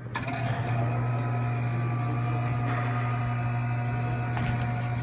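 A/C recovery and recharge machine's motor switching on with a click and running with a steady hum, then cutting off near the end.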